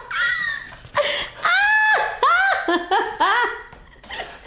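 A woman laughing in several bursts of high-pitched giggles and squeals, her reaction to a Y-strap neck traction pull.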